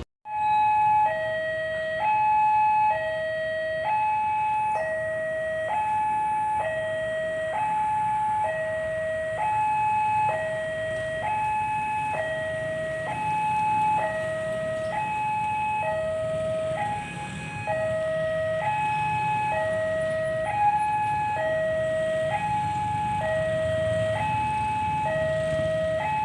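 Electronic railway level-crossing warning alarm sounding a steady two-tone pattern, alternating evenly between a higher and a lower tone, as the crossing closes for an approaching train.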